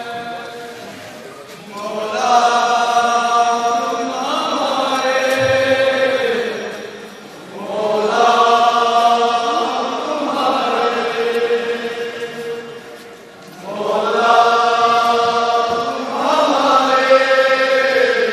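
Men's voices chanting a noha, a Shia mourning lament, in long held phrases that swell and fade about every six seconds.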